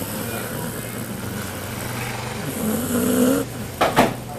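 Sleeping cocker spaniel snoring, with one drawn-out, wavering snore about three seconds in over a steady low hum. Two sharp knocks just after it are the loudest sounds.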